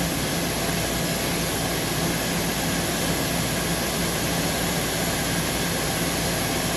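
Steady hiss of compressed air escaping from the Scania truck's burst air blow-gun line, heard inside the cab over the steady hum of the engine and road noise while driving. The truck's air system is leaking a lot of air.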